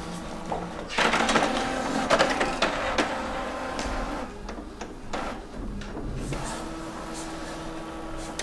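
Inkjet printer starting up about a second in and printing a page of text. It is loudest for the first few seconds, then runs more quietly and steadily.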